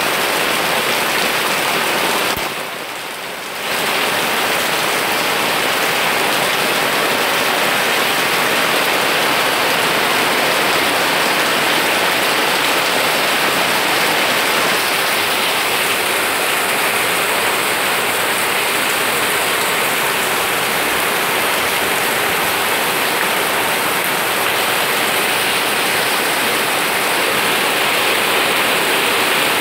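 Steady rain falling on garden plants and wet ground, an even hiss that dips briefly about three seconds in.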